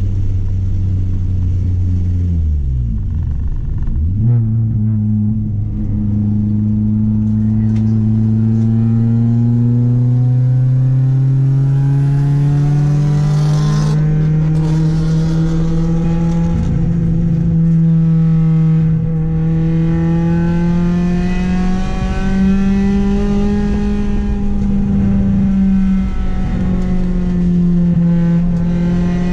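Honda Accord's H22A inline-four engine pulling hard: its pitch dips sharply about three seconds in, recovers, then climbs slowly for some ten seconds and holds high with small rises and falls.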